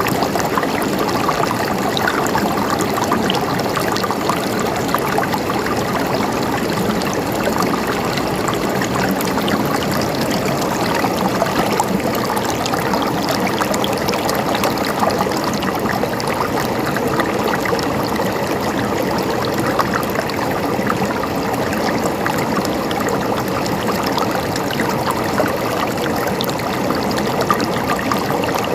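River water flowing steadily over rocks, an even rush full of small splashes and trickles.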